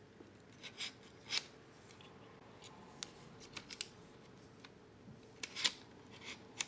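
Light scrapes and clicks of a camera's quick-release plate rubbing against the camera mount of a DJI Ronin RSC 2 gimbal as the camera is worked into place. About half a dozen short, separate sounds, a second or so apart.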